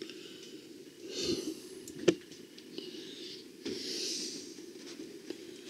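A person breathing close to the microphone: two soft hissing breaths, about a second in and around four seconds in. A single sharp click just after two seconds is the loudest sound.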